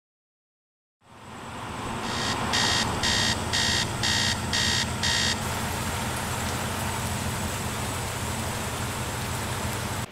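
Heavy rain falling steadily, with a low steady hum underneath. It fades in about a second in. A couple of seconds in, a run of about seven quick electronic beeps, roughly two a second, sounds over the rain.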